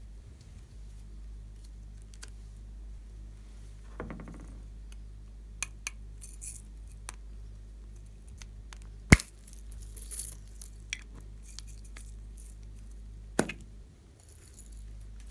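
Hands handling slime and small hard plastic toy balls in a glass bowl: scattered clicks and clinks of plastic against glass, with a single sharp click about nine seconds in and another near the end, over a low steady hum.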